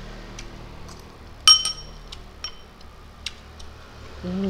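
Metal spoon clinking against a glass bowl: one loud ringing clink about a second and a half in, then a few lighter taps.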